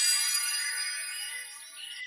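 A sparkling chime sound effect: many bell-like tones with glides rising through them, fading away.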